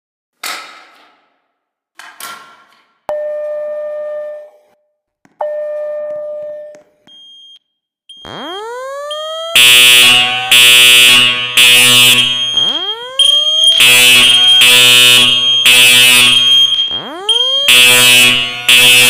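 Building fire alarm going off. A couple of clicks and two long beeps come first. About eight seconds in, loud buzzy horns begin sounding in groups of three, the temporal-3 evacuation pattern, overlapping a slow rising whoop tone and a high steady beep.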